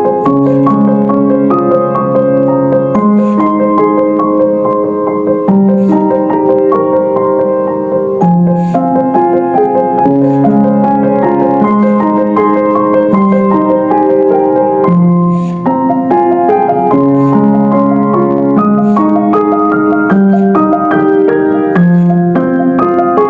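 Piano or keyboard music: sustained chords and melody notes in a slow, gentle style.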